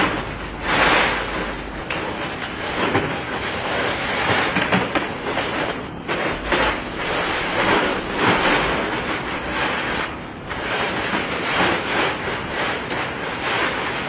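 Ice cubes clattering and crunching in a plastic paddling pool as a polar bear cub rolls and digs through them, rising and falling in uneven surges.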